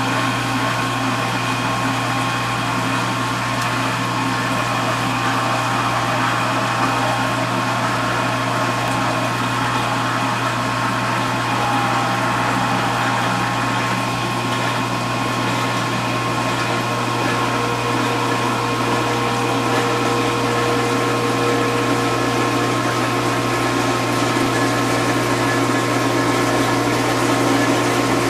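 Vintage KitchenAid KDS-18 Superba dishwasher running its wash cycle: a steady motor and pump hum under the constant rush of spraying water.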